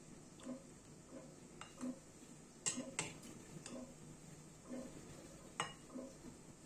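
Metal ladle clinking against a steel plate and a ceramic serving bowl as curry is ladled out: a few sharp clinks about two and a half to three seconds in and again near the end, over soft, roughly evenly spaced ticks.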